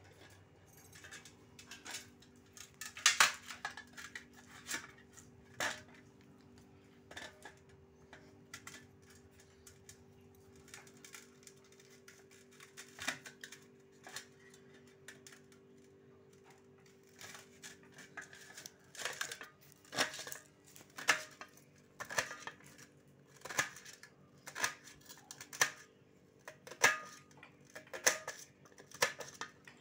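Kitchen knife slicing red onions on a stainless steel plate: sharp clicks of the blade striking the steel, scattered at first, then coming about once a second in the second half.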